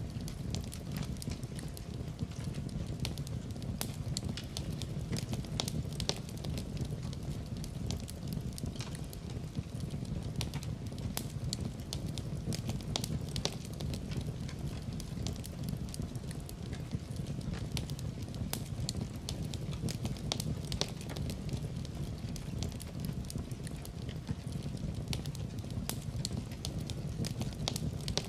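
Fire crackling in a fireplace: frequent small irregular pops and snaps over a steady low rumble of flame.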